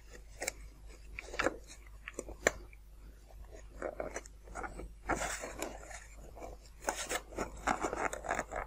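A thin polystyrene ceiling-tile foam sheet being handled and rubbed against a foam model fuselage: irregular light scrapes and clicks, busier about five seconds in and again near the end.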